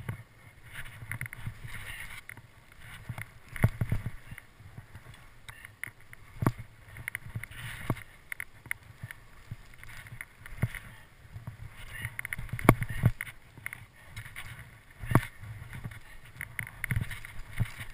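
Skis turning down a steep snow slope, heard from a helmet-mounted GoPro: a rushing hiss of the skis over the snow, irregular knocks and clicks, and wind rumbling on the microphone.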